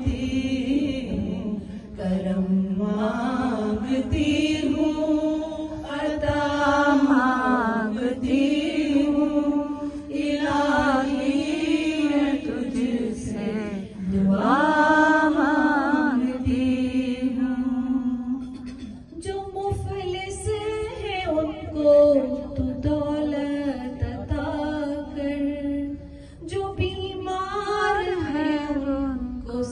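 A woman chanting an unaccompanied Urdu devotional naat into a microphone, in long melodic phrases with held, wavering notes.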